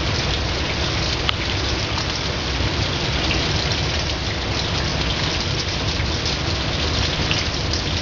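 Steady, heavy rain pouring down and splattering on surfaces, with one sharp tick of a drop a little over a second in.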